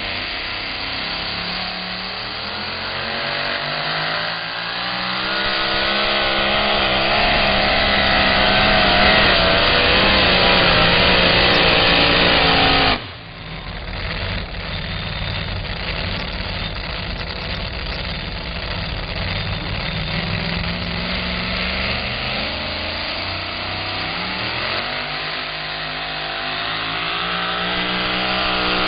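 Supercharged pulling-truck engines running and revving, the pitch climbing over several seconds. About halfway through the sound breaks off abruptly, then an engine revs up again with rising pitch near the end as a blower truck starts its pull on the sled.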